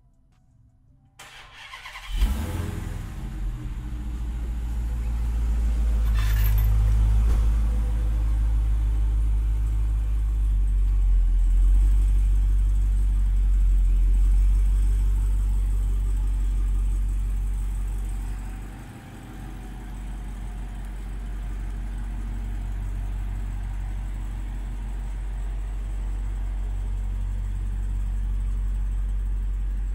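Dodge Hellcat's supercharged 6.2-litre Hemi V8, breathing through a newly fitted Legmaker cold air intake, starts with a sudden loud catch about two seconds in, then runs at a fast idle with a deep rumble. It dips briefly about two-thirds of the way through, then settles into a steady idle.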